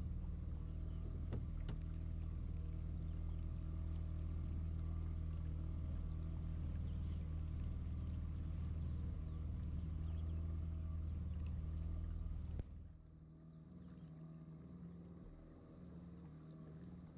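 A longboat's engine runs at a steady note. About two-thirds of the way through it drops sharply to a much lower, quieter idle as the boat eases in toward the landing, still ticking over.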